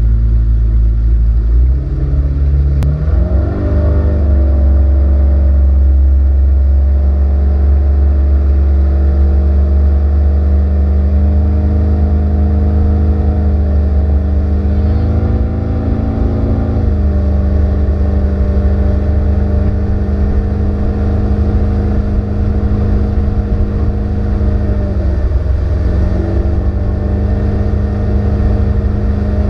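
Yamaha Saltwater Series outboard motor throttling up about two to four seconds in to pull a wakeboarder out of the water, then running steadily at towing speed under load. There are small changes in pitch in the middle, and a short dip and recovery near the end.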